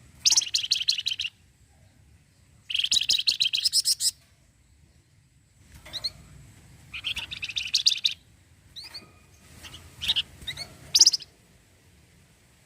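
Flamboyan (wergan jawa) songbird chattering in three fast, rattling trills of rapidly repeated high notes, the 'cretetan' that bird keepers prize, with short rising whistled notes between them.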